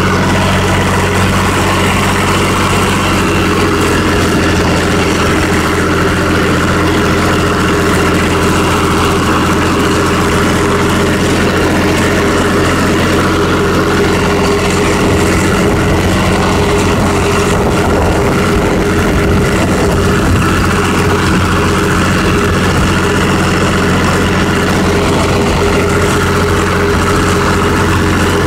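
Farm tractor engine running at a steady throttle while raking hay, heard from the driver's seat.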